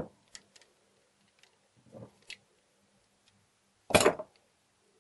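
Small clicks and knocks from a metal Glutz tube-frame mortise lock being handled on a wooden workbench, with one short, louder clatter about four seconds in.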